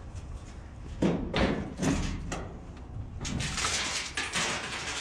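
Hard objects being handled: a few knocks and thumps about a second in, then a busy run of clattering and rattling from a little past the middle.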